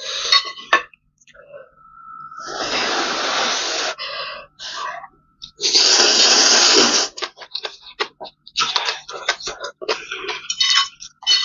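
A person slurping Korean spicy noodles in two long, loud slurps, the first about two and a half seconds in and the second about six seconds in. Wet chewing and lip-smacking follow as quick clicks.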